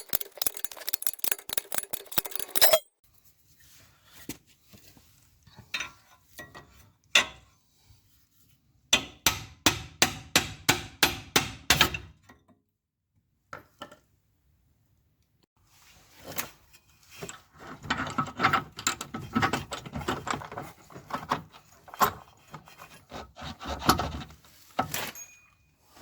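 Hand tools working on car suspension bolts: runs of rapid metallic clicking and clinking, a regular series of strokes a third of the way in, and a longer clicking rattle near the end, with short pauses between.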